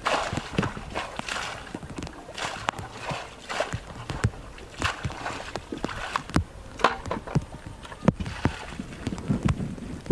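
A plastic bucket pushed and tipped through shallow muddy water: irregular sloshing and splashing, with many short sharp knocks and splats.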